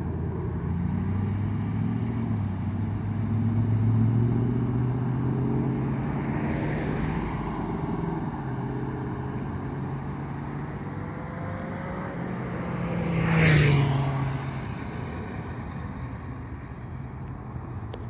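Road traffic: cars and SUVs accelerating away through a green light, engine hum climbing in pitch over the first few seconds. A vehicle passes close about two-thirds of the way through with a rush of tyre noise, the loudest moment, then the sound eases off.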